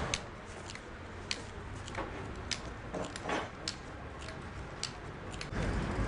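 Sharp, unevenly spaced clicks and light taps, about two a second, with one longer scraping stroke about three seconds in. Near the end a louder, low background rumble cuts in.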